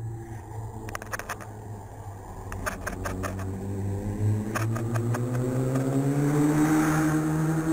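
A motor vehicle's engine passing on a road, its pitch rising gradually as it grows louder toward the end. A few sharp clicks come in the first half.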